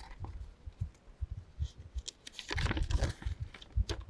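Papers and packaging being handled: irregular crackling, light clicks and scrapes, busiest in the second half, with low thumps underneath.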